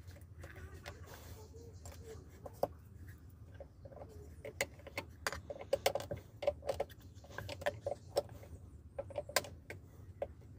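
Small metal parts of an electric water pump clicking and clinking against each other as they are handled and fitted during reassembly, in irregular sharp taps, most of them after the first couple of seconds.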